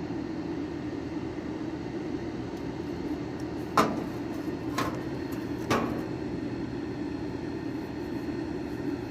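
Steady low mechanical hum with three sharp clicks about a second apart in the middle, from handling wires and tools on an air-conditioner's compressor wiring.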